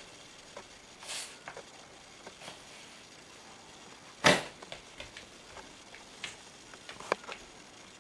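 Scattered clicks and scuffs of a small dog's paws and claws on the floor as it play-fights with a cat, with one loud thump about four seconds in.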